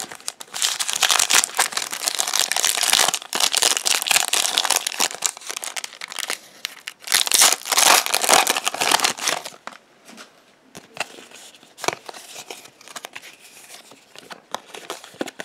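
Foil trading-card booster pack crinkling and tearing as it is opened by hand, loudest in the first three seconds and again about seven to nine seconds in. After that, quieter rustles and clicks as the cards are handled.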